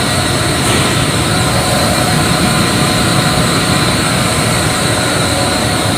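Industrial air compressor running: a loud, steady machinery drone with a faint steady whine over it.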